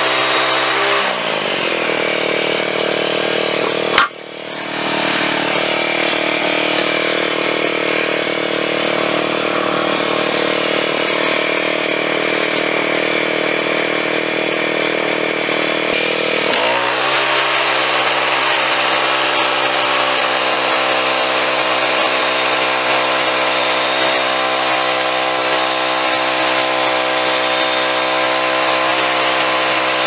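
Woodland Mills portable band sawmill driven by a Kohler gasoline engine, running while the band blade saws through a log cant. The engine throttles down about a second in, there is a sharp click a few seconds later, and near the middle it revs back up to a steady cutting speed.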